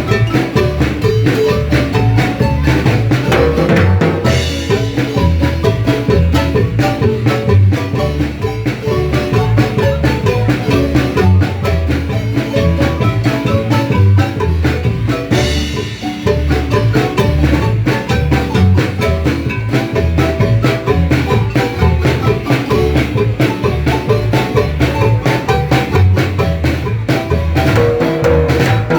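Marimba music with percussion, the bass pulsing in a steady beat.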